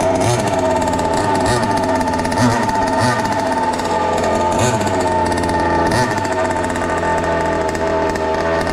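The tuned, ported stroker two-stroke petrol engine of a 1/5-scale MCD XR5 Max Pro RC rally car running steadily, with a few brief small changes in pitch from light throttle.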